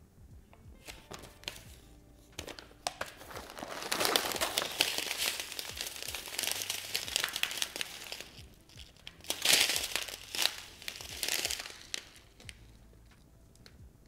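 Crinkling of a folded paper leaflet and a plastic instant ice pack pouch being handled and turned over. The crinkling is loudest in two stretches, about four seconds in and again about nine seconds in, over background music.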